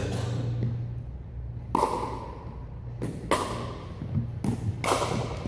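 Pickleball rally: sharp hollow pops of paddles striking the plastic ball and of the ball bouncing on the hardwood floor, about five in all, echoing in the gym hall, over a steady low hum.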